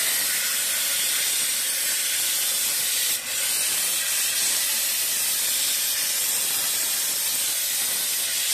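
Handheld steam cleaner jetting steam over a hookah's ash tray to clean it: a loud, steady hiss with a brief break about three seconds in.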